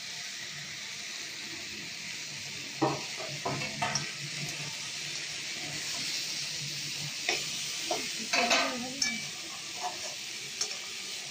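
Chopped vegetables and potatoes frying in oil in a metal kadai with a steady sizzle. In a few short bouts, a metal spatula scrapes and knocks against the pan as the vegetables are stirred.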